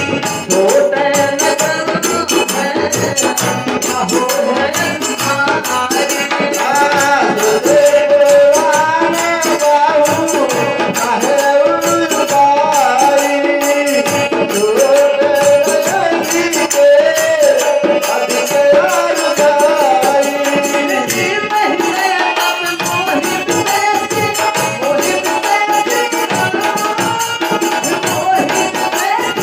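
Bagheli folk Ramayan music: a wavering melody with long held notes over fast, steady rattling percussion.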